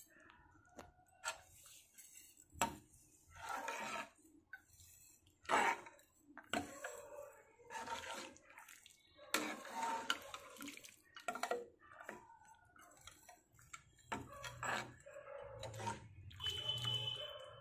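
A steel ladle stirring sugar into hot milk with vermicelli and nuts in a pan: irregular sloshing swishes of the liquid, with scrapes and a few clinks of the ladle against the pan.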